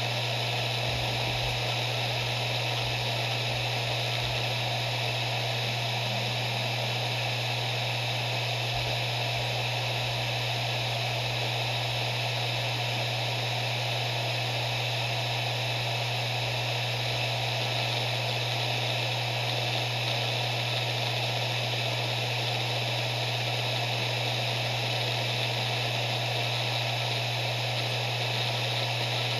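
Maxtor MaXLine Plus II 7200 RPM hard drive spinning at speed: a steady, unchanging hum with a hiss above it.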